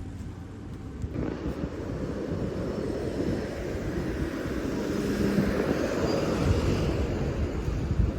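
Eizan Electric Railway train running, its rumble and rail noise rising sharply about a second in and growing steadily louder, with a faint hum and a brief high whine midway.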